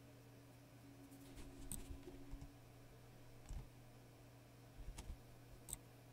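Near silence: a steady low room hum, with a few faint short clicks and knocks scattered through.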